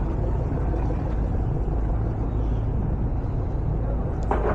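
Steady low rumble of outdoor background noise, with a brief higher-pitched sound near the end.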